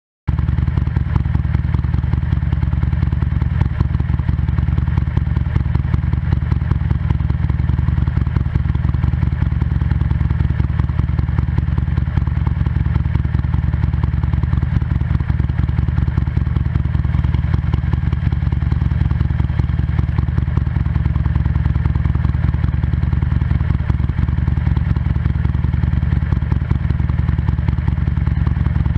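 2007 Buell XB9SX's air-cooled V-twin running steadily at a constant speed through a Penzl flap exhaust with the flap open, heard close at the tailpipe.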